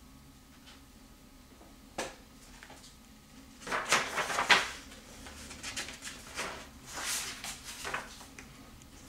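Pages of a paperback book being turned and rustled, loudest about four seconds in, with a single sharp tap about two seconds in.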